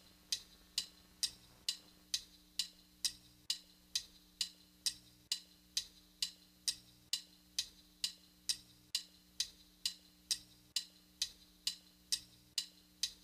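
Steady, evenly spaced ticking, a little over two clicks a second, like a metronome click track left running, over a faint low hum.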